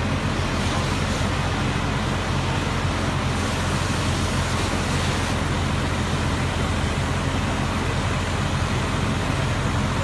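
Fire engine idling steadily: an even low engine hum under a constant hiss.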